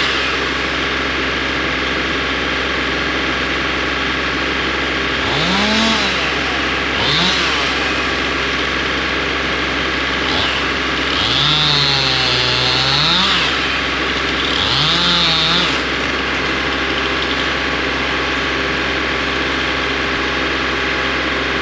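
Stihl Farm Boss chainsaw revved up four times, the longest rev lasting about two seconds, between stretches at a lower, steady speed. A steady engine hum runs underneath.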